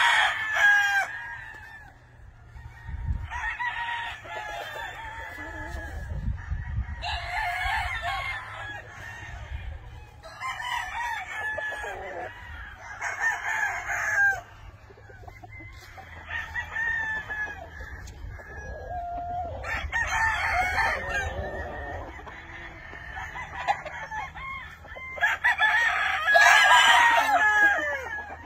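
Many roosters crowing, one after another and overlapping, a new crow every couple of seconds, with some clucking between. The loudest crows come near the end.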